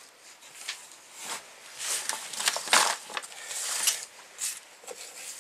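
Paper and sticker sheets rustling and crinkling in irregular bursts as they are handled.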